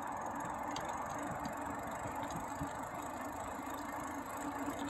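Bicycle tyres rolling over a wet paved path littered with pine needles: a steady rolling hum with a few light ticks and rattles from the bike.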